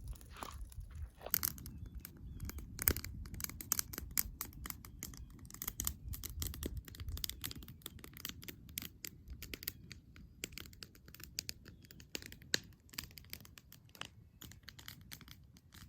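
Campfire of gathered wood crackling and popping, with many irregular sharp snaps over a low rumble.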